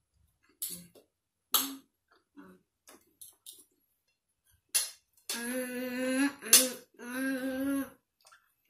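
Eating sounds: a few short clicks and smacks of fork and spoon and mouth while a child eats, then two long, steady "mmm" hums of enjoyment from the child in the second half.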